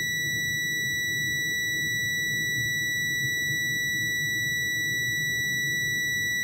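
Multimeter continuity beeper sounding one steady, unbroken high-pitched tone as the test probes touch. The unbroken tone shows the probes making solid, low-resistance contact without the crackle or dropouts of an oxidised connection.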